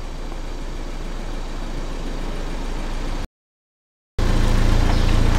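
Car engine running at low speed as the car creeps closer, growing a little louder. It breaks off abruptly just over three seconds in, and after about a second of silence it comes back louder with a deeper hum.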